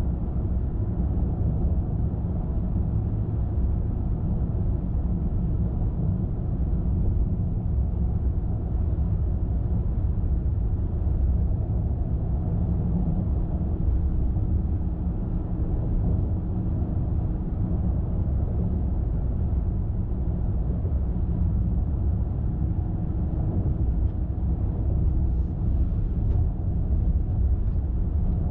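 A car driving along the road at a steady pace: a continuous low rumble of tyres on the road surface and the engine, with no change through the stretch.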